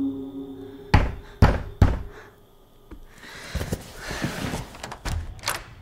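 Three sharp knocks on a door in quick succession about a second in, after a held musical drone dies away; a few seconds of shuffling and light clatter follow.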